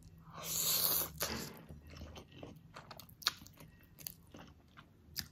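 A person slurping spicy instant noodles in one long hissing pull near the start, then chewing them with scattered small mouth clicks.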